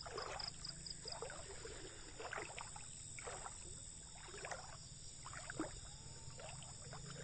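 Water splashing in a rough rhythm about once a second. Under it runs a steady high-pitched drone, with a fast string of high chirps in the first second.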